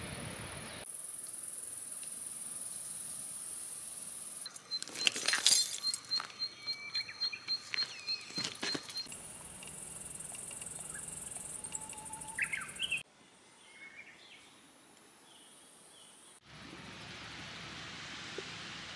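Outdoor nature ambience in short pieces cut one after another: a steady high insect hiss, then a run of loud repeated bird calls about five seconds in, a few chirps later, and a brief quieter stretch near the end.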